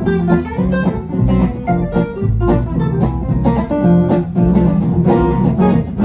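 Gypsy jazz trio playing live: two Selmer-Maccaferri-style acoustic guitars and an upright double bass. Picked melody notes run over rhythm-guitar strumming on the beat and a walking bass line.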